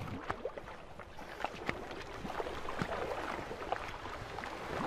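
Water splashing and lapping as an orca surfaces beside a floating diver. Many small splashes and drips tick over a steady wash.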